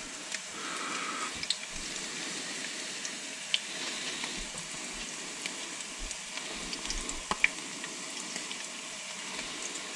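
Battered smelt frying in hot oil in a pan: a steady sizzle, with a few sharp ticks scattered through it.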